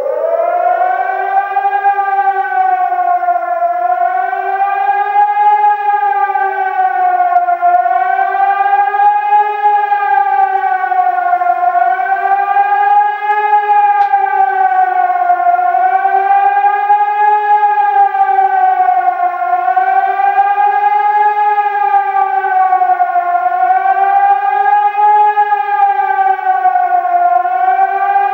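Civil defence warning siren wailing with a low and a high tone together, its pitch swinging up and down about every four seconds. This is the undulating howl that sounds the public warning in a German siren test.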